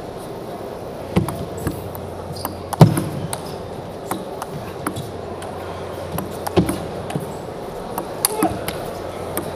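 Table tennis ball clicking on the table and off the players' bats in a rally, sharp ticks every half second to a second, the loudest about three seconds in, over a low hum of arena noise.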